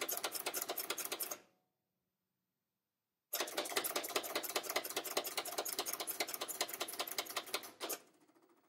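HP 7475A pen plotter drawing its demonstration plot: its pen and paper drive motors make a rapid ticking clatter as the pen moves. It stops about a second and a half in, is silent for about two seconds, then starts again and runs until near the end, when it drops to a faint trace.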